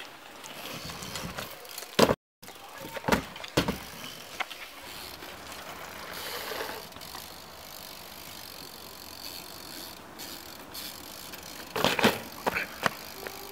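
BMX bike being ridden on dirt: sharp knocks and rattles from the frame and chain, with a loud cluster of impacts near the end as the bike lands from the air.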